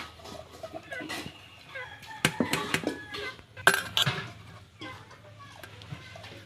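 Chickens clucking, with a few sharp clinks of kitchen utensils, the loudest about two and three and a half seconds in.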